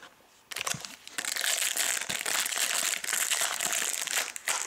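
Foil wrapper of a Panini Hot Rookies football card pack crinkling as it is torn open and handled, starting about half a second in.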